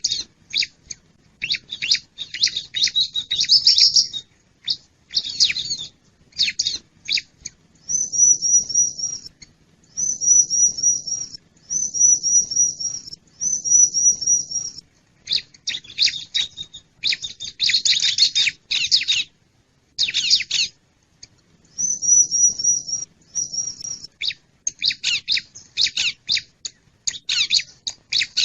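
Bar-winged prinia (ciblek) calling: rapid clusters of sharp chip notes alternate with about five trilled phrases of repeated down-slurred notes, each lasting a second or two. This is a lure call meant to draw wild birds in.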